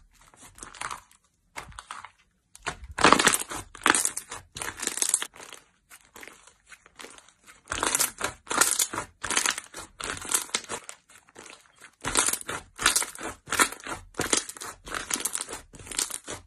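Hands squeezing and kneading white fluffy slime, making squishing sounds in irregular bursts with a couple of short pauses.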